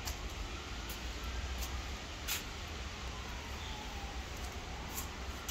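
Quiet outdoor ambience: a steady low rumble and hiss with a few faint short clicks, and a faint tone that slides slowly down in pitch and back up over several seconds.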